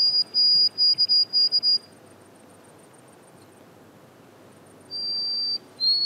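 White-throated sparrow singing clear, pure whistled notes: a long note and then a quick run of short repeated notes. After a pause of about three seconds the next song starts near the end, stepping downward in pitch.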